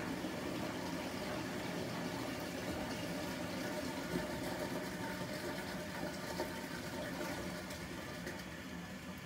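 Nortec Primus P6 commercial washing machine with water running and splashing into its drum, a steady rushing sound that eases slightly near the end.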